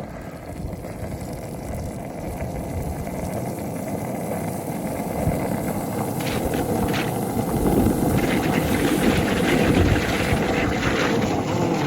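Skateboard rolling fast down an icy road, a steady rumble of wheels with a shoe sole scraping on the road to brake; it grows gradually louder as the board picks up speed.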